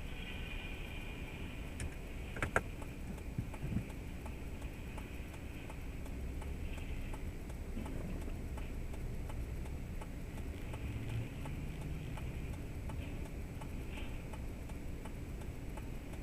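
Strong wind buffeting the microphone as a steady, flickering low rumble, with a sharp knock about two and a half seconds in, another near four seconds, and faint ticks or rattles throughout.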